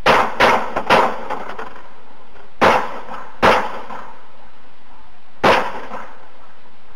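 Six gunshots, each a sharp crack with a short echo: three in quick succession within the first second, then single shots about 2.7, 3.5 and 5.5 seconds in.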